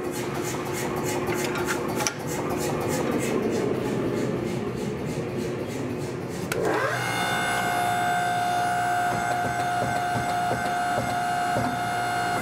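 Hydraulic forging press's motor and pump starting a little past halfway: a rising whine that settles into a steady hum with a high tone. Before it, a steady shop noise with a fast, even pulse.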